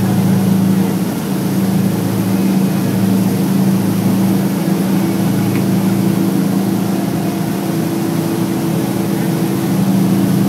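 Fishing boat's engine running steadily under way: a constant low, even hum, with the rush of the wake beneath it.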